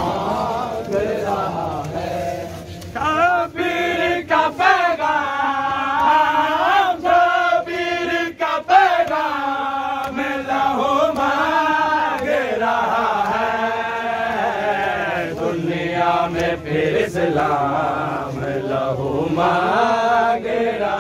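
A man chanting a noha, a Shia mourning lament, in a slow, wavering melody that runs on without a break.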